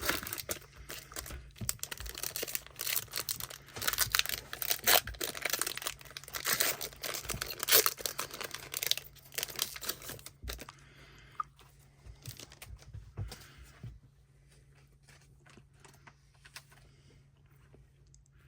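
Foil trading-card pack wrapper being torn open and crinkled for about ten seconds, then quieter scattered clicks and rustles of cards being handled.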